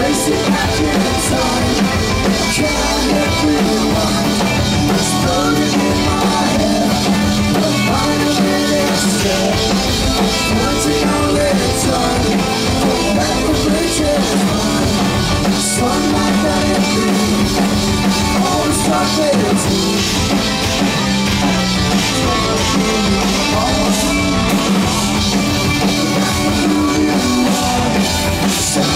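Progressive rock band playing live: drum kit, bass, electric guitar and keyboards in a dense, steady passage.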